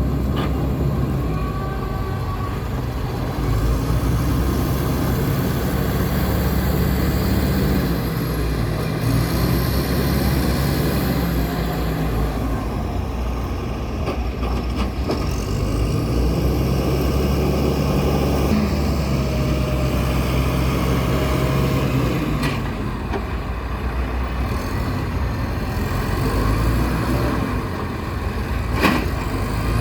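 Logging truck's diesel engine running, its revs rising and falling several times, with a sharp knock near the end.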